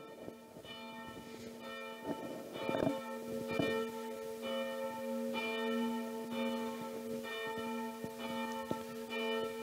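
Church bell ringing, swung and struck about every 0.8 s, its hum carrying on between strikes and growing louder over the first couple of seconds.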